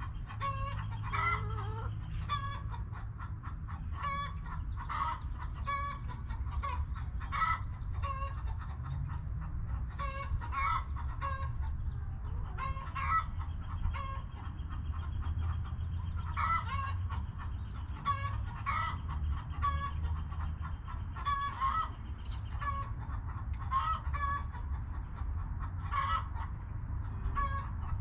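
Backyard hens clucking: many short clucks from several birds, coming every second or so, over a steady low rumble.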